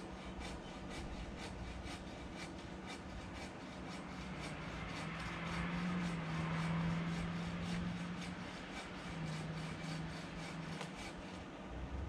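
Hand saw cutting through a tree branch in quick, even back-and-forth strokes.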